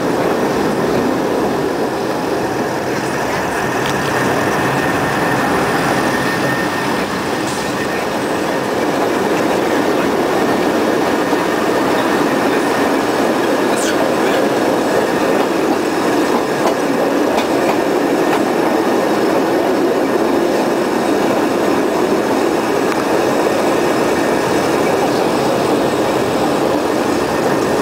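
Narrow-gauge park railway train rolling steadily along its track, heard from an open passenger car: an even rumble of wheels on rails, with a faint high wheel squeal over the first several seconds.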